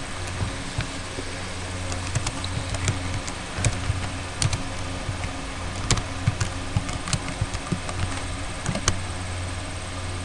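Typing on a computer keyboard: irregular key clicks in short runs, over a steady low hum.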